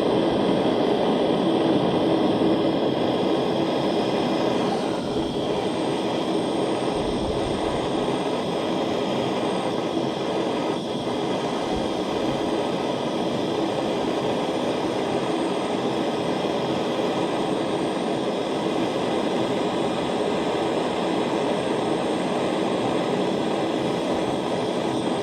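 Jeweler's soldering torch burning steadily, a continuous rushing flame noise, while it heats solder joints on a ring toward flowing.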